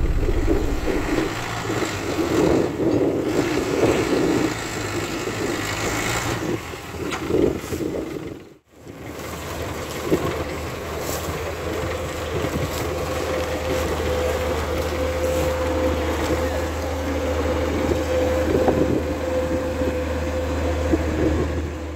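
Diesel engines of a Claas Dominator 88SL combine harvester and a tractor running in the field. The sound is uneven at first, breaks off briefly about a third of the way in, then settles into a steady low engine note with a held whine on top.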